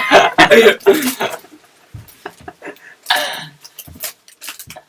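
A person's voice for about the first second, then scattered small clicks and a short breathy burst like a cough a little after three seconds in.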